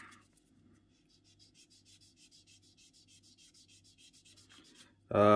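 Sanding stick rubbing back and forth on a clear plastic model canopy in quick, even, faint strokes, smoothing down its moulded centre seam line.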